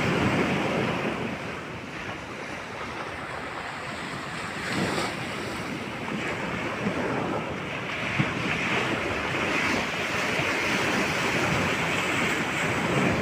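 Heavy surf in a storm: high waves breaking and rushing in continuous swells, with strong wind buffeting the microphone.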